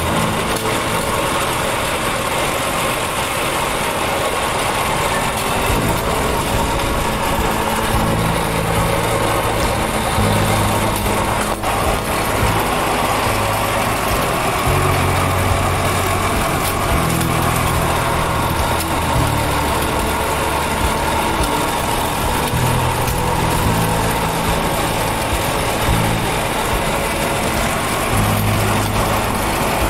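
A vehicle's engine running steadily with road and wind noise, heard from on board while driving, its low hum shifting in pitch now and then.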